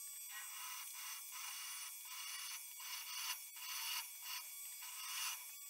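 Drill bit cutting into a steel rebar blank, a high scraping hiss with a steady whine that swells and eases every half second or so as the bit bites and curls off chips.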